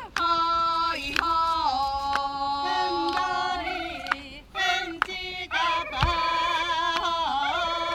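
Women's voices singing the song of the Ainu crane dance, several voices overlapping in long held notes that waver and step between pitches, with a few sharp clicks.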